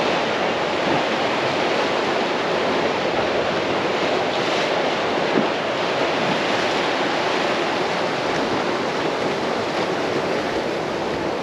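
Sea surf washing against rocks, mixed with wind: a steady rushing noise.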